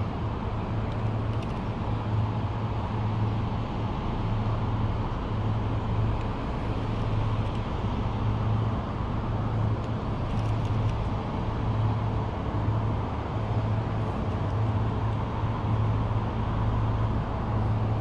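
Steady urban road-traffic rumble, with a low hum underneath that swells and fades every second or two.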